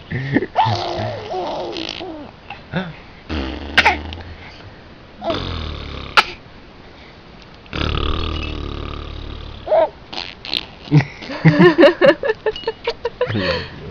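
A young child making fart sounds with the mouth, spit spraying through the lips. There are three drawn-out buzzy ones in the middle, with short squealing vocal sounds at the start and a string of them near the end.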